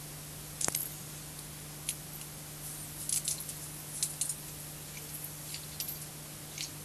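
Steady static hiss with a low hum, broken by irregular sharp crackles and clicks. This is the sound track of a scrambled analog pay-TV channel as recorded on VHS tape, with no intelligible audio.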